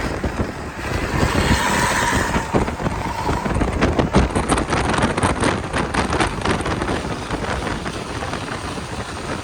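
Steady noise of a moving vehicle, with wind buffeting the microphone and crackling through the second half.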